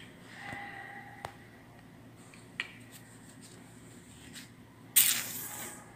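Handling noise on a phone held close: a few faint clicks over quiet room tone, then a short, loud rustling burst about five seconds in as a hand works at a cloth face mask near the microphone.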